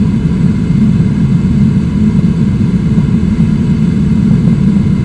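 Loud, steady, deep rush of a waterfall and its whitewater rapids, with no break or change.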